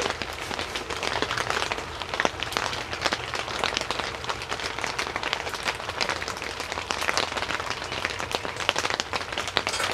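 Rain pattering steadily on a tent's fabric roof, a dense haze of irregular drop ticks.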